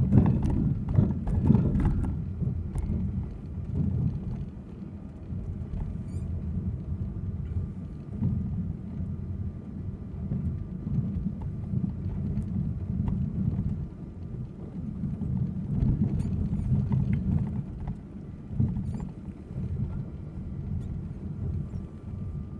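Car's engine and tyre rumble heard from inside the cabin while driving, with a cluster of knocks and rattles in the first two seconds and a few scattered clicks later.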